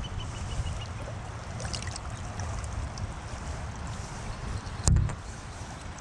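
Shallow creek water running steadily, with a low wind rumble on the microphone. A single sharp knock comes near the end and is the loudest sound.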